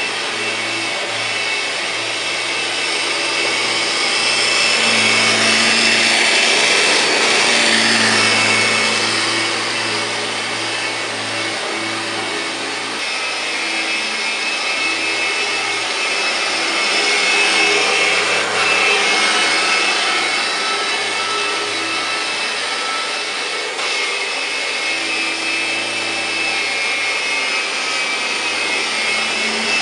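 1999 Kirby G5 upright vacuum cleaner running steadily as it is pushed back and forth over carpet, its motor whine swelling louder and easing off a couple of times with the strokes.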